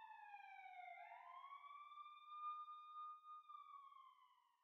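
Faint police siren wailing. Its pitch falls, rises again about a second in, holds, then sinks slightly and fades out near the end.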